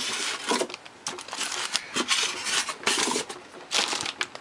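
Irregular rustling and light knocks of packaging being handled as a car stereo head unit is taken out of its wrapping.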